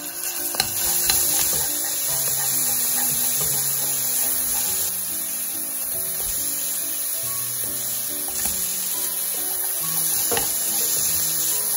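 Minced garlic sizzling steadily in hot olive oil in a frying pan. Strips of bacon join it about halfway through and are stirred into the oil. Light background music plays underneath.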